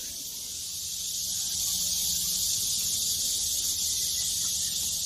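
Steady, high-pitched insect chorus buzzing evenly without a break.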